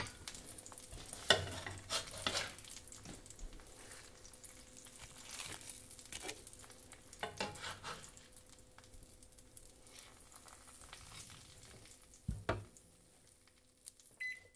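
Eggs sizzling in a frying pan, with a few sharp clinks and scrapes of a utensil against the pan. The sizzle dies away near the end.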